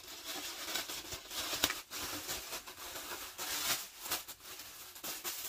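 Grey plastic mailer bag crinkling and rustling as it is opened by hand and the plastic-wrapped garment is pulled out, with irregular crackles and a sharper snap about one and a half seconds in.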